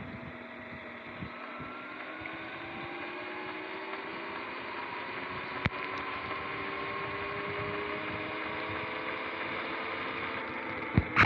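Sur-Ron X electric dirt bike's motor whining and slowly rising in pitch as the bike gathers speed, over a steady hiss of tyres on wet pavement. A sharp click about halfway through and a couple of knocks near the end.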